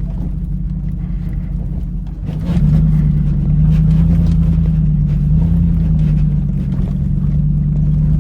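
Dodge Ram pickup's Hemi V8 heard from inside the cab while driving off-road: the engine runs steadily, then a little over two seconds in it gets louder and settles into a steady drone under throttle.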